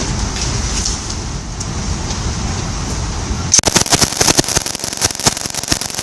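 Low steady rumble, then about three and a half seconds in a machine gun opens up, firing a rapid string of shots, many a second, in short bursts.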